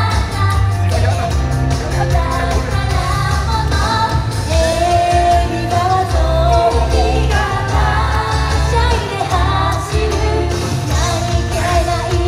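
Japanese idol pop song performed live: young women singing the melody into handheld microphones over a pop accompaniment with a strong bass, heard through the stage sound system.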